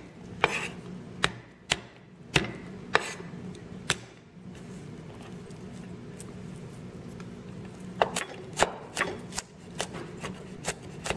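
Cleaver chopping on a thick round wooden chopping board: sharp, separate knocks for the first few seconds, a pause of about four seconds, then quicker chopping of garlic cloves from about eight seconds in. A steady low hum runs underneath.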